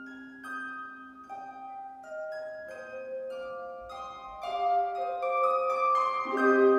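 Solo concert harp being played, single plucked notes ringing on. The notes start soft and sparse, then grow louder and fuller about two-thirds of the way in, with a lower note struck near the end.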